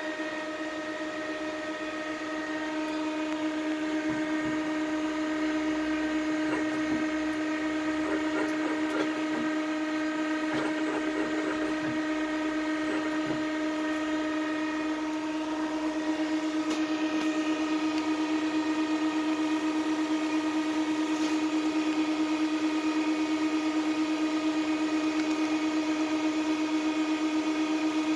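Muratec MW100 twin-spindle CNC turning center running under power: a steady machine hum and whine made of several fixed tones. It grows louder about four seconds in and again about halfway through, with scattered light clicks in between.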